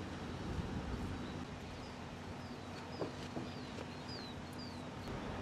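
A bird chirps a quick run of short, high, falling notes from about two seconds in, over a steady background noise with a faint low hum.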